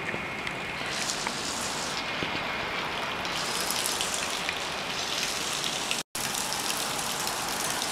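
Steady rain: an even hiss of falling drops that cuts out for a split second about six seconds in.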